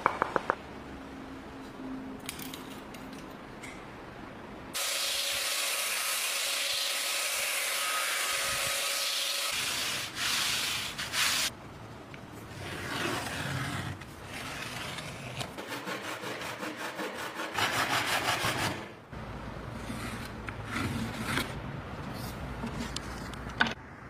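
Workshop sounds of wood being worked by hand: rubbing and scraping strokes on a wooden board, quick and repeated for a while in the second half. About five seconds in, a steady hiss starts abruptly and runs for about five seconds before cutting off.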